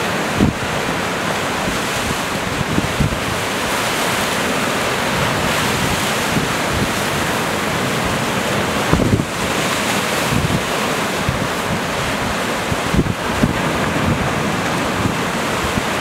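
Rough sea surf breaking and rushing against a rocky shore in a steady roar. Gusty wind buffets the microphone with occasional low thumps.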